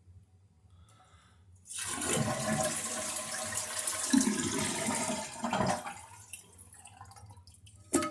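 Toilet flushing: a sudden rush of water that lasts about four seconds, then eases into a fainter flow. A sharp click comes near the end.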